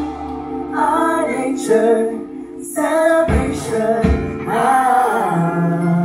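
Music with a woman singing.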